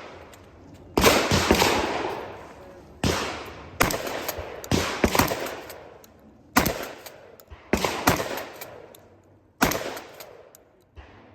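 Shotgun firing about ten shots at an uneven pace, each blast trailing off in a long echo.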